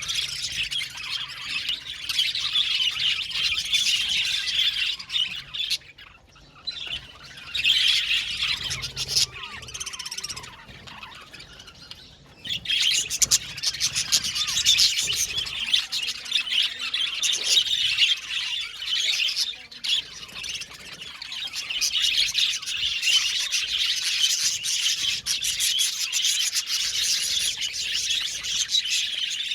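A flock of budgerigars chirping and chattering continuously, with a few brief lulls in the first half.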